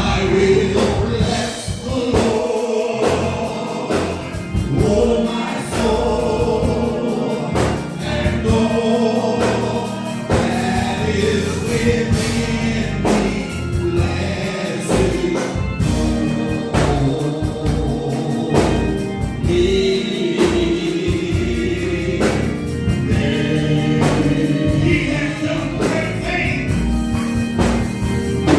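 Gospel choir singing with band accompaniment: a bass line under the voices and regular drum hits.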